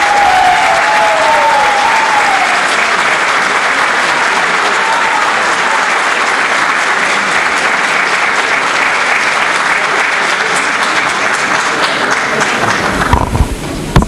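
Audience applauding steadily as a diploma is presented, dying away about 13 seconds in. A few loud low thumps follow near the end.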